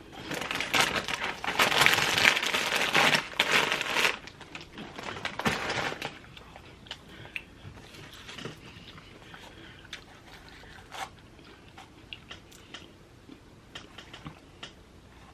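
Loud, close crunching and crinkling as a grinder sub loaded with shredded lettuce is bitten and chewed, dense for about four seconds and trailing off by about six, then only a few scattered small clicks.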